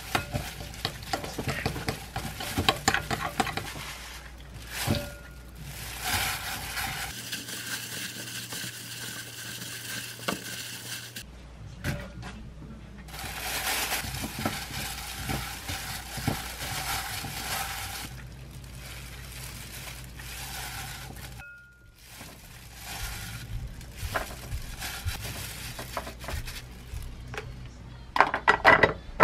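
Metal spoon stirring and scraping a thick doenjang seasoning paste against a glass mixing bowl, then a plastic-gloved hand tossing cut cucumber chili peppers in the sauce, with many small clicks and wet handling noises. A few sharper clicks near the end as a plastic-lidded glass container is handled.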